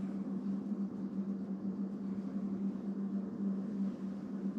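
A steady low hum over a faint hiss, without distinct knocks or scrapes.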